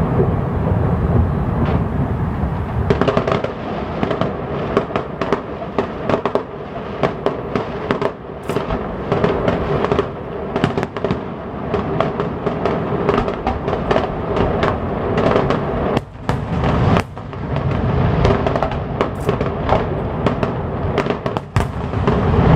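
Fireworks display: rapid crackling and popping bursts throughout, with deep booms at the start and again near the end. Music plays along underneath.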